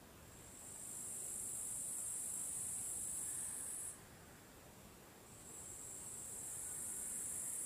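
An insect's high, hissing buzz in two bouts. The first swells in over about a second, holds steady and cuts off sharply about four seconds in. The second starts swelling a second and a half later and is still going at the end.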